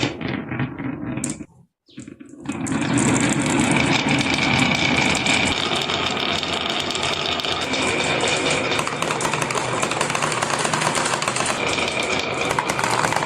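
Many marbles rolling and clattering down a wooden marble-run track. A few separate clicks give way to a brief pause, then about three seconds in a dense, steady rattle of many fast clicks begins and keeps on.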